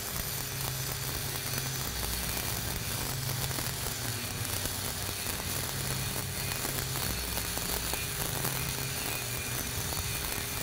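Stick (SMAW) arc welding with a 7018 electrode at 130 amps: the arc crackles steadily over a hiss as a horizontal fill pass is run. A low hum sits underneath.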